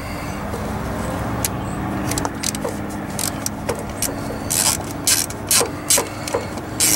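A screw being driven into the tail-light mounting with a screwdriver. From about halfway in there are short scraping rasps at about three a second, over a steady low hum.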